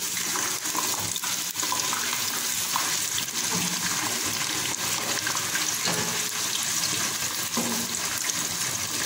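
Eggplant slices sizzling as they fry in hot oil in a nonstick pot, with a wooden spatula stirring and turning them, giving light scrapes and taps over the steady hiss.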